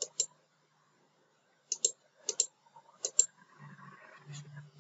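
Computer mouse clicks: four quick pairs of sharp clicks spread over about three seconds. A faint low hum starts near the end.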